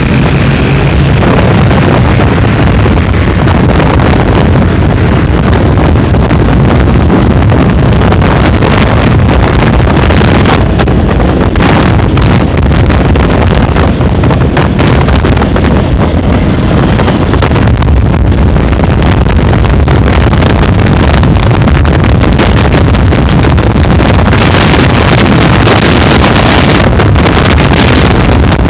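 Heavy wind buffeting on the microphone of a camera carried on a moving motorcycle, over the motorcycle's engine and the road noise of traffic. It is loud and steady throughout.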